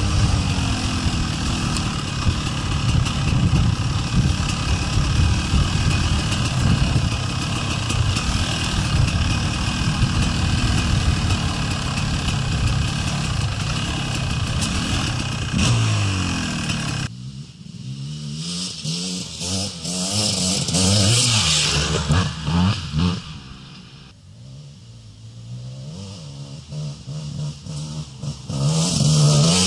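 Gas Gas EC 250 two-stroke enduro motorcycle engine revving up and down under riding, heard up close from a camera on the bike. After a cut about 17 seconds in, a dirt bike's engine is heard from the trackside, rising and falling at a distance and growing loudest near the end as it comes close.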